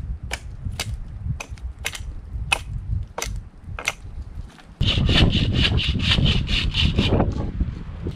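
Dry firewood being broken and worked for a small campfire: a run of sharp wooden snaps about every half second, then a few seconds of dense rasping on wood.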